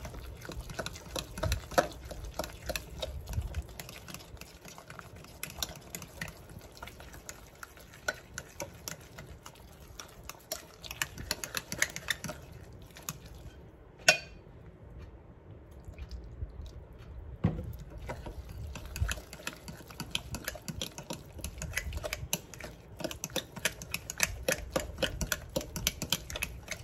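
Metal spoon stirring thick cornbread batter in a glass mixing bowl: a rapid run of clicks and scrapes of the spoon against the glass. The stirring eases off for a few seconds around the middle, broken by one sharper knock.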